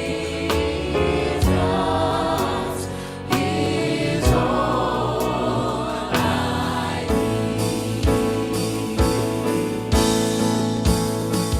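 Gospel choir singing a slow song over instrumental accompaniment, with drum hits about once a second.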